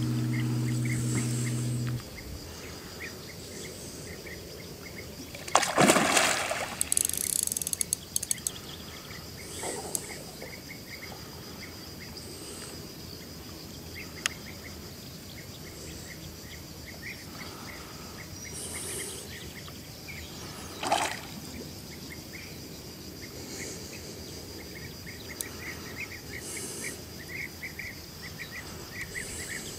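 Background music stops about two seconds in, leaving riverside ambience with small birds chirping again and again. Two loud, brief rushing noises stand out, about six seconds in and again around twenty-one seconds.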